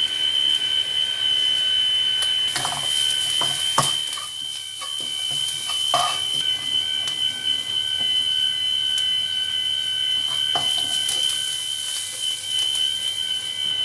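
Chopped onions and garlic sizzling in a non-stick pan, with a wooden spatula scraping and knocking as they are stirred, in two bouts. A steady high-pitched tone runs underneath throughout.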